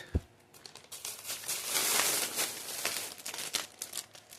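Plastic snack wrappers crinkling as they are handled and flattened: a dense run of crackles, loudest about two seconds in, with a brief low thump near the start.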